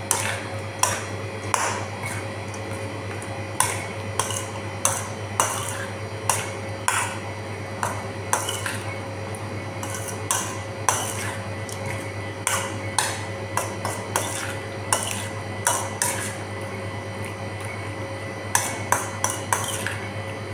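Stainless steel mixing bowl clinking and tapping as shrimp are tossed in marinade: irregular sharp clinks on the metal, about one or two a second, over a steady low hum.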